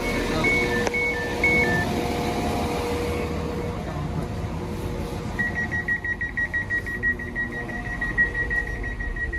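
Passenger train door alert tones: a two-tone chime of alternating higher and lower beeps as the doors open, ending about two seconds in. From about halfway, a rapid run of beeps at one pitch, the warning given before the doors close.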